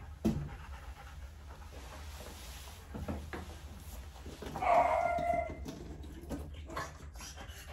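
French Bulldog giving one short, whining cry about five seconds in, lasting under a second, with a few faint knocks around it.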